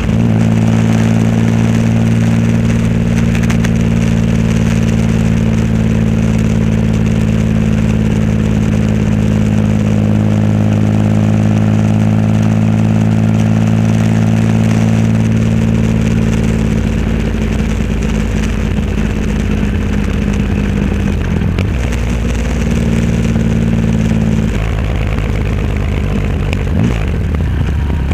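Triumph Rocket 3 Roadster's 2.3-litre inline-three engine running through a custom exhaust while riding: a steady cruising note for about the first sixteen seconds, then the note breaks up and shifts with throttle changes, holding steady again briefly near the end.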